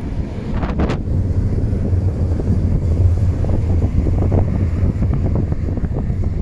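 Wind blowing across the microphone: a steady low rumble with gusty rises and falls, and a short crackle about a second in.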